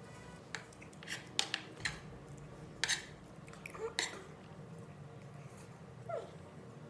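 Close-up eating sounds: a utensil clicking and scraping against a plate of rice several times, with chewing and mouth noises, and a short falling squeak about six seconds in.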